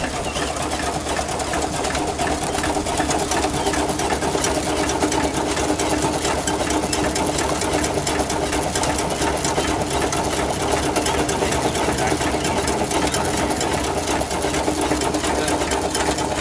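1902 Loco Cycle steam motorcycle's steam engine running, its exhaust steam chuffing in a fast, steady rhythm with a hiss.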